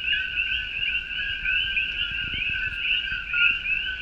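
Dense chorus of many male coqui frogs calling at once. Their two-note "co-qui" calls, with the rising "qui", overlap into a continuous, pretty loud high-pitched din.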